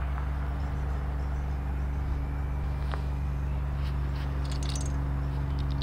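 A steady low hum made of several unchanging low tones, with a faint click about three seconds in.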